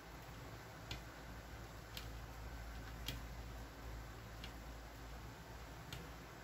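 Faint, sharp clicks at uneven intervals, roughly one a second, from a metal crochet hook as stitches are worked, over a low steady room hum.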